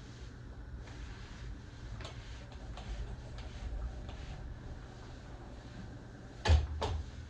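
Light clicks and knocks of things being handled in a kitchen, ending in two sharp knocks close together near the end, over a low steady hum.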